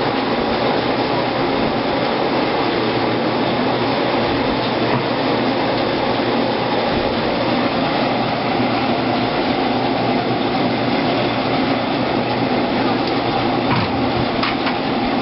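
Motorized grape crusher-destemmer running steadily as the first batch of Pinot Noir grapes goes through, with a couple of brief knocks near the end.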